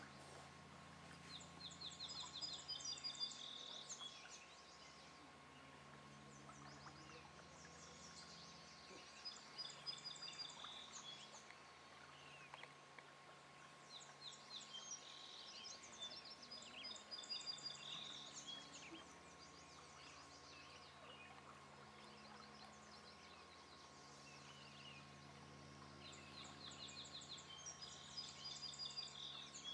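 A songbird singing short phrases of quick, high, repeated notes four times, several seconds apart, over a faint low hum.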